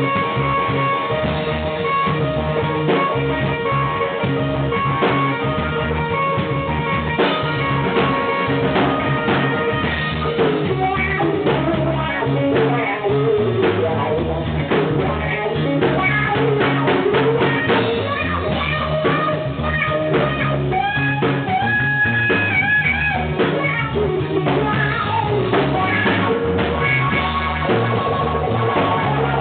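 Blues band playing live: guitar lines with bent notes over bass and drum kit.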